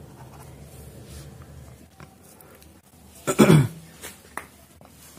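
Faint marker strokes on paper, then about three seconds in a man's brief vocal noise, a short voiced burst falling in pitch, followed by a few light clicks.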